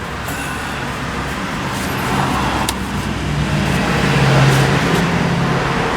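Steady engine hum of a motor vehicle running nearby, growing louder about halfway through, with a few light clicks.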